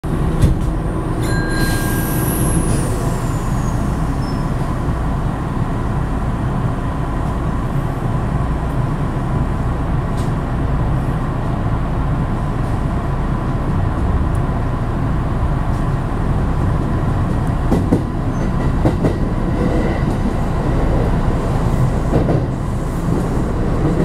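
Hanshin Namba Line electric train running, heard from inside the front car: a steady rumble of wheels on rail, with a brief high whine falling in pitch about two seconds in.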